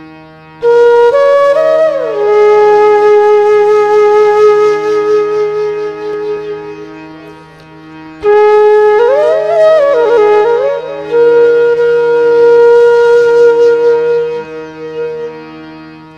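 Flute music: a slow flute melody of long held notes with bending ornaments, over a steady low drone. It comes in two phrases, the second starting about halfway through.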